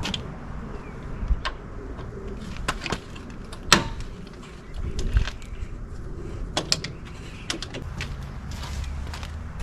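Scattered clicks and knocks of hand tools and door hardware as the screws holding a side-by-side's door are taken out, with one sharper knock a little before halfway.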